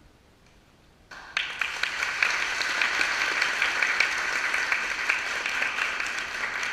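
A small audience applauding, the clapping starting suddenly about a second in after a quiet moment and then going on steadily.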